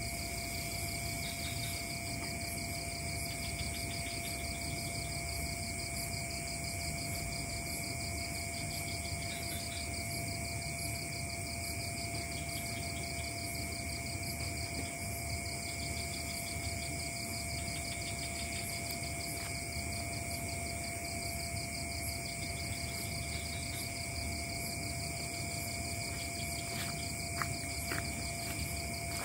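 Night insect chorus of crickets and other insects calling steadily at several pitches, one with a fast, even pulsing trill, over a steady thinner tone lower down. A few faint clicks near the end.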